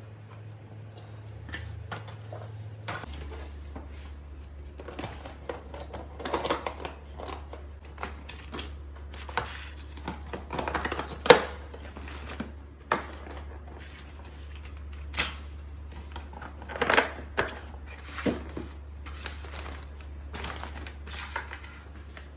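Irregular clicks, knocks and rustles of hands handling kitchen items, a few of them sharper and louder. A low steady hum starts about three seconds in.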